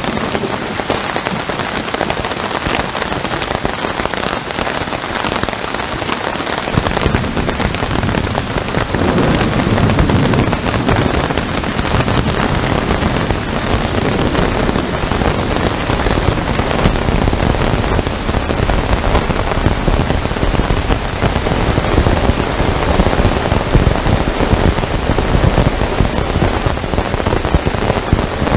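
Heavy rain falling steadily, a dense continuous patter. About a quarter of the way through, a deep low rumble joins in and continues under it.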